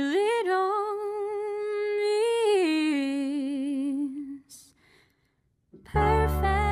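Song: a singer holds one long note with vibrato, stepping up and back down in pitch a couple of times, then fades out about four seconds in. After a second of near silence, loud backing music with heavy bass comes in near the end.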